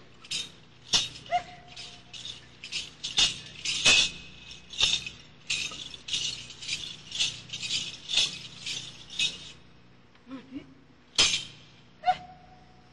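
Rhythmic percussive clicks, about two to three a second, that thin out about ten seconds in, leaving a few last clicks and a short tone.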